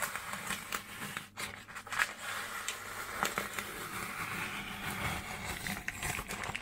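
Paper template and mounting tape crinkling and tearing as they are peeled away from around the base of a toilet, with many small crackles.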